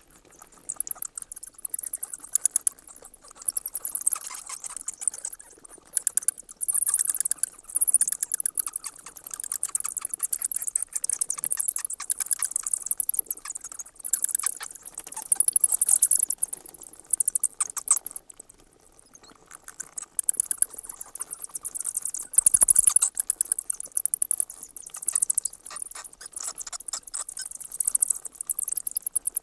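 Bats chittering: rapid, very high-pitched squeaks and clicks in bouts of a few seconds with short gaps between them.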